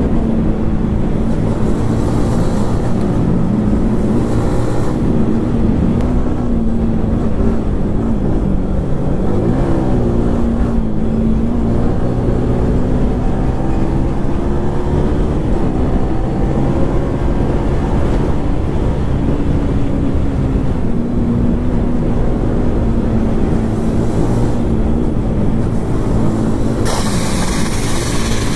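Yamaha 155 cc single-cylinder sportbike engine running at cruising revs on the move, its pitch rising and falling with the throttle, over steady wind rush on the microphone. Near the end a louder gust of wind hiss comes in as the bike leans into a bend.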